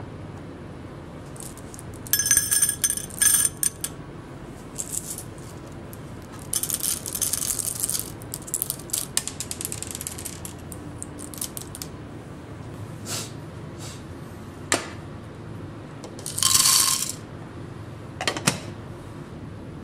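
Whole coffee beans poured into a small stainless-steel-lined cup, clattering and ringing against the metal in bursts, with a few more short clatters and clicks later on.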